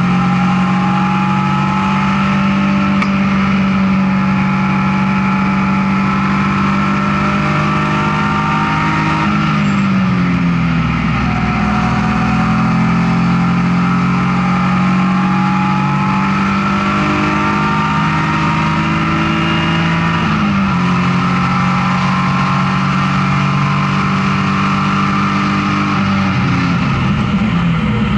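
BMW E36 M3 race car's straight-six engine under load at speed, heard from inside the stripped, caged cabin, its pitch stepping at gear changes about ten and twenty seconds in.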